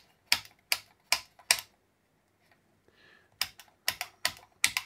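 An 11-position rotary switch clicking through its detents as its knob is turned: four crisp clicks at an even pace, a pause of nearly two seconds, then a quicker run of clicks near the end.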